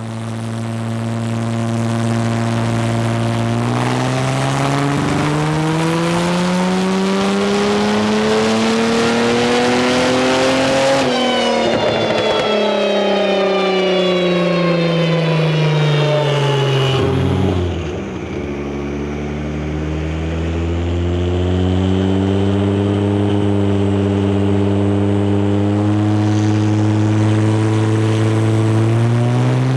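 Kia Stinger 3.3 L twin-turbo V6 under load on a chassis dyno, revs climbing steadily for about eleven seconds, dropping with a gear change, climbing again, then falling sharply as the throttle closes about seventeen seconds in. It runs steadily at lower revs, then begins to rise again near the end.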